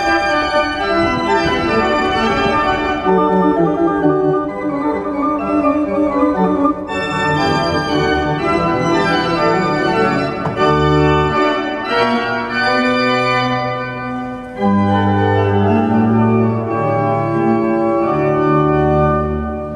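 Church pipe organ playing sustained chords, with deep low bass notes joining about ten seconds in and the sound swelling again after a brief dip near the end.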